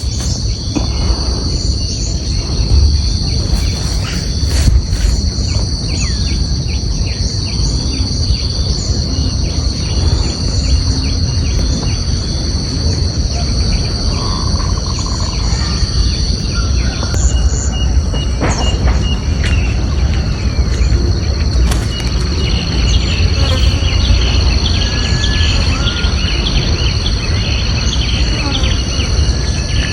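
Insects droning with a steady high-pitched ringing, with short bird and insect chirps scattered through it and thickening near the end, over a constant low rumble.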